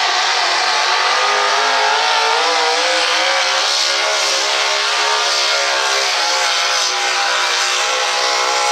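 Supercharged engine of a modified pulling truck running flat out under load as it drags the pulling sled, loud and steady, its pitch wavering slightly up and down.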